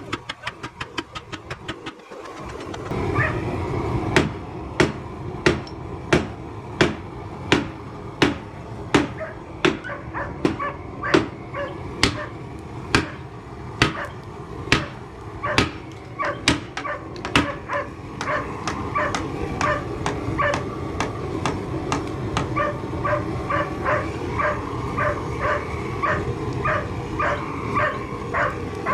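Repeated hammer blows on steel, about one and a half to two a second, each with a short metallic ring, over a steady low hum. A quicker run of light ticks comes before the blows begin.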